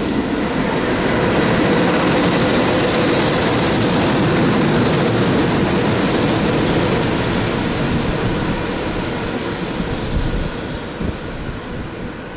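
A freight train hauled by an EH500 electric locomotive rolling through a station, a loud steady rush and rumble of the locomotive and wagons on the rails. It swells over the first few seconds and slowly dies away in the second half.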